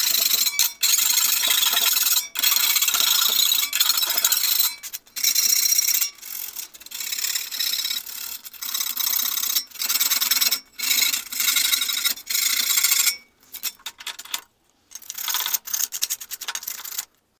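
Hand file scraping along the cut edges of a metal electrical-box lid, deburring a freshly ground opening. It starts with long, steady strokes, then goes on in shorter strokes with brief pauses, and stops near the end.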